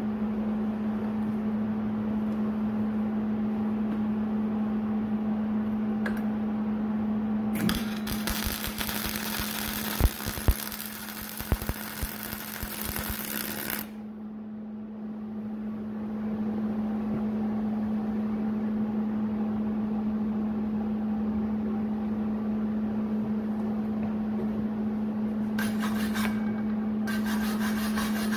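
Steady hum of the MIG welder's cooling fan, which spins up just before the sound begins. About a third of the way in, an aluminum MIG weld from a spool gun crackles for about six seconds with a few loud pops. The shielding gas is not fully turned on, which the welder later blames for the ugly, non-bonding bead. Near the end come two short bursts of scraping on the metal.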